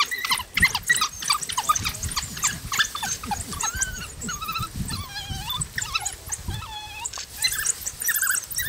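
A pack of African wild dogs squealing and twittering while feeding on a kill: many short, high, wavering calls in quick succession, over clicks and crunches of eating.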